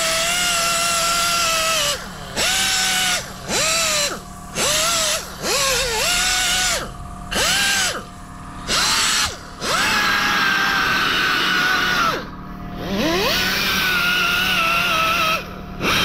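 Small air-powered polisher with a foam pad whining as it is run in short trigger bursts, about ten starts and stops with a couple of longer runs, its pitch sagging as the pad is pressed on. It is polishing out the blend marks around a freshly lacquered spot repair on a diamond-cut alloy wheel, the final step of the repair.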